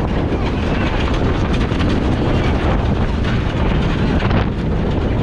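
Wind buffeting the microphone aboard a sailing yacht under way in a breeze: a loud, steady rushing noise with heavy low rumble.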